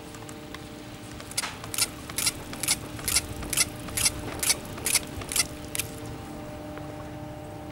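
The cable grip of a Doppelmayr quad chairlift chair rolling over a lift tower's sheave train: a run of about eleven even clacks, roughly two a second, over a steady low hum.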